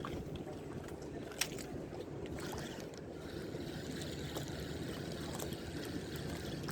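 Steady low rumble of wind and water at a harbour's edge, with a few light clicks and one sharp click about a second and a half in.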